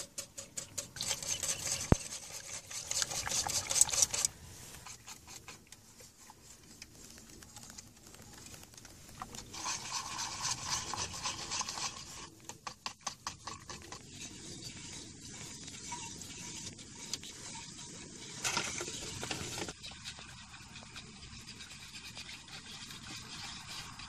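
Metal spoon stirring and scraping thick sour cream porridge in a stainless steel pot, in quick strokes. The strokes come in bursts of a few seconds with quieter stirring between.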